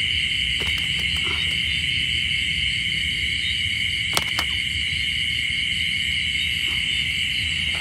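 Steady chorus of insects trilling on one high, unbroken pitch, with a few faint clicks from handling, one about four seconds in.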